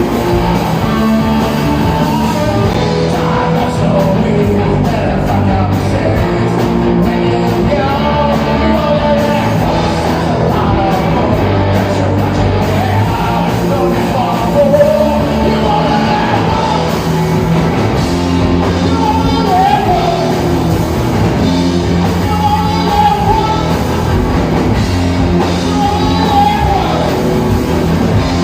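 Live rock band playing a song with a sung lead vocal over the full band.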